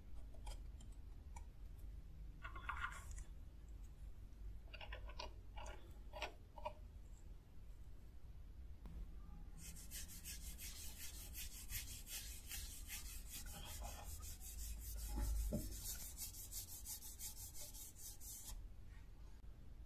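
A cloth rubbing oil into a knife's wooden handle: a steady hissing rub that starts about halfway through and stops shortly before the end. Before it, a few short scrapes and clicks of handling.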